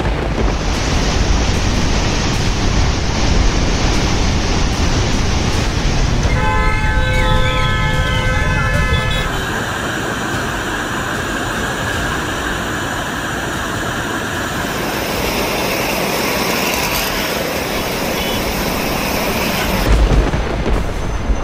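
Loud, steady rushing of floodwater. A horn-like tone sounds for about three seconds, starting about six seconds in, and a deep boom comes near the end.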